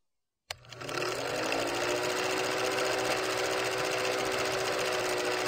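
Film projector sound effect: a fast, even mechanical clatter with a steady hum under it, starting about half a second in.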